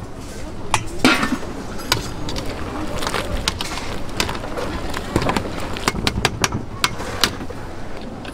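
Aluminium pots and utensils clanking: a stockpot lid being lifted and a wire mesh strainer knocking and scraping against the pot, with a quick run of sharp metal clicks in the second half.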